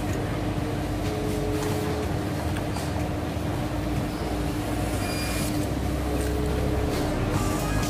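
Steady fast-food dining-room background noise: a constant hum with one low steady tone under it, and a few faint clicks of clatter.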